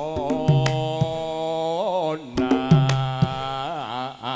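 Javanese gamelan music in pelog tuning: a singer holds long, ornamented notes that waver and bend over the ensemble, with sharp drum strokes now and then.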